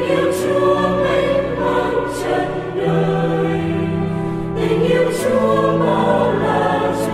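Background music: a choir singing held, sustained notes in the style of Christian church music.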